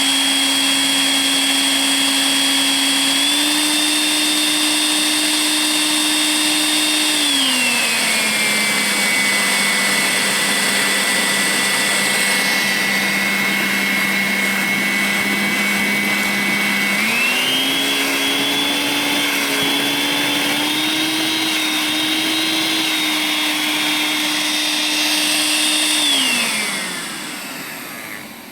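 Makita 10.8 V cordless stick vacuum cleaner's motor running with a steady whine. It drops to a lower speed setting about a quarter of the way in and comes back up a little past halfway. Near the end it winds down to a stop.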